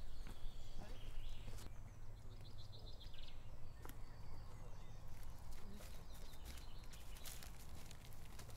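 Footsteps of two people walking over dry leaf litter and twigs, as scattered crunches and snaps that come thicker near the end. A short trilled bird call comes about three seconds in, over a low steady rumble.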